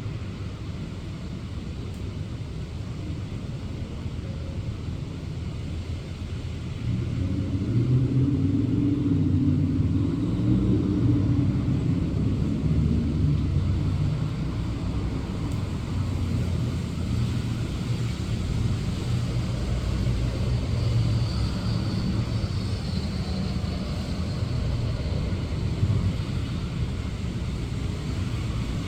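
Steady rain hiss with traffic rumble underneath; a vehicle's low engine and tyre rumble grows louder about seven seconds in and stays up.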